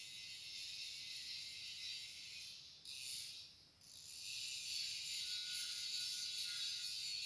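Electric welding arc crackling, a steady high hiss that cuts out twice for a moment about three seconds in before the arc strikes up again.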